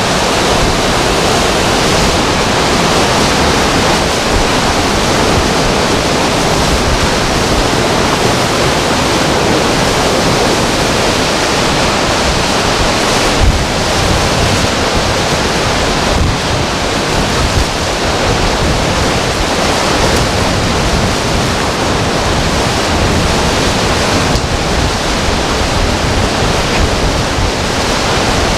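Hurricane wind blowing hard, a loud steady rushing noise buffeting the microphone, with a sharper gust about 13 seconds in.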